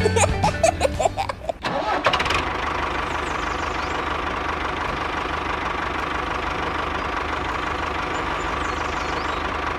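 A short burst of cartoon-style 'ha ha' laughter, then, from about two and a half seconds in, a steady engine running sound for the toy tractor.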